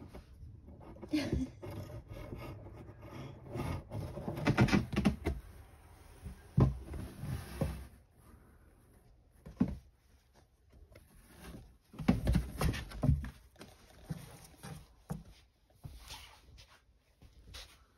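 Scattered rustling and soft knocks from handling around a cardboard box, coming in irregular clusters with quieter gaps between.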